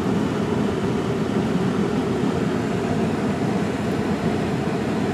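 A steady rushing noise with a low hum underneath, even throughout, with no distinct events.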